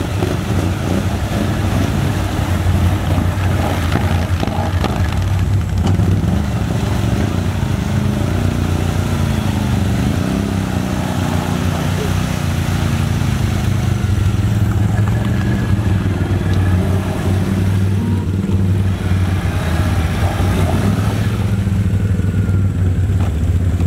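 Can-Am Outlander XMR ATV V-twin engine running under steady load while crawling through deep water. Its pitch rises and falls with the throttle, most clearly about ten seconds in.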